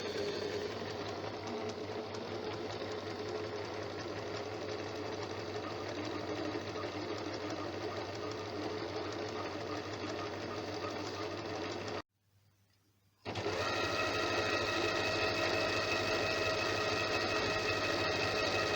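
Janome zigzag sewing machine running steadily after cleaning and lubrication, now running light, its earlier heavy noise gone. The sound drops out for about a second some twelve seconds in, then the machine runs again with a steady whine.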